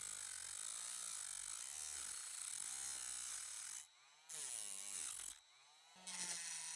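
Small electric power tool whirring, its pitch wavering up and down as it works, cutting out briefly twice about four and five and a half seconds in.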